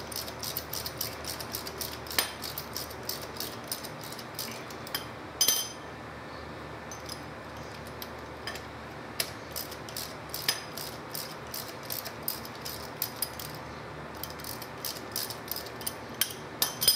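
Hand ratchet clicking in quick runs as a nut on the golf cart drive motor is worked, with a louder metal clink about five seconds in.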